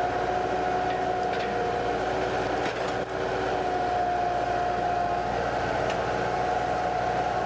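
Bobcat 864 skid steer's engine running steadily, with a constant whine over the engine noise.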